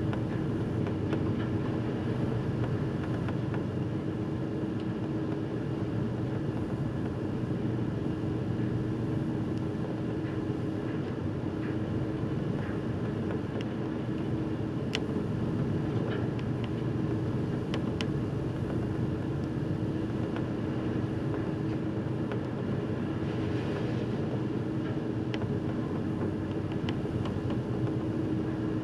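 Steady low rumble and constant hum of a car ferry under way, with wind and sea noise over the bow deck and a few faint ticks.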